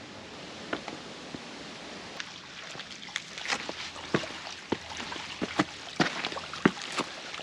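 Footsteps on dry creek-bed rocks and gravel: irregular crunches, scrapes and knocks that begin about three seconds in and come thicker towards the end.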